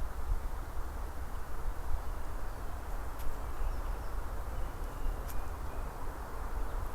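Steady outdoor background noise: a low rumble and hiss, with a few faint ticks.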